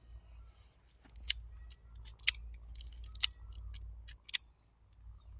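Taurus .357 Magnum revolver being handled: four sharp metallic clicks about a second apart, with fainter clicks between them, as the shooter works the cylinder and cartridges.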